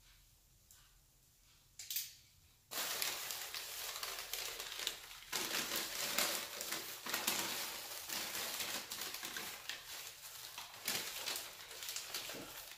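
Newspaper wrapping being unfolded and crinkled by hand: a short crackle about two seconds in, then dense, continuous paper rustling from about three seconds in until just before the end.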